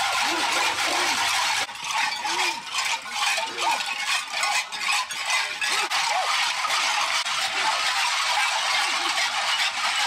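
Many cowbells tied to the bodies of carnival devils clanking together as they walk and run, a dense metallic jangling clatter, with people's voices shouting over it.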